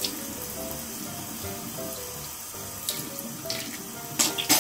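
Bathroom sink tap running steadily, with water splashing as a child rinses at it after brushing his teeth. A couple of short sharp splashes near the end are the loudest sounds.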